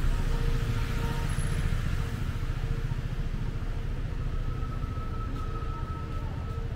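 Street noise dominated by a motor vehicle running close by, its low rumble easing off gradually over the few seconds.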